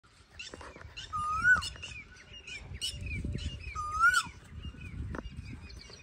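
Asian koel calling twice, each call a whistled note that rises and then drops off at the end, among the high chirps of other small birds.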